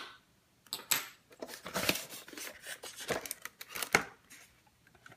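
Hands handling a diecast car's packaging: irregular clicks, scraping and rustling of styrofoam and plastic as the car, screwed into the bottom of the styrofoam, is worked free.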